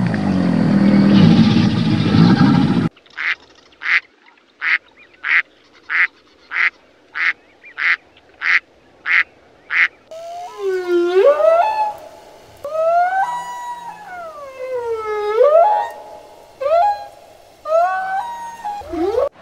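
An alligator's deep, low bellow for about three seconds. Then a duck quacks about a dozen times at an even pace. Then a whale sings long moans and whoops that glide up and down in pitch.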